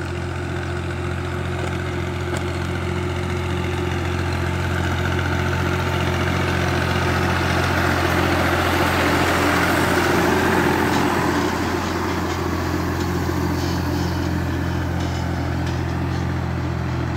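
Farm tractor's diesel engine running at a steady speed as the tractor drives by. It grows louder as the tractor comes close, is loudest about ten seconds in, then eases off as it moves away.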